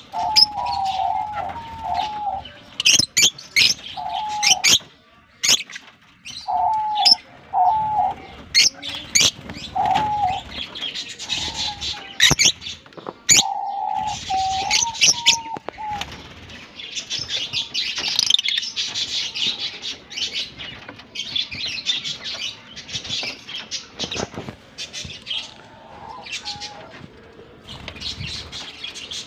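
A colony of Fischer's and other lovebirds chattering with dense, shrill chirps, with sharp clicks and wing flutters scattered through it. A lower, hooked call repeats in short runs through the first half.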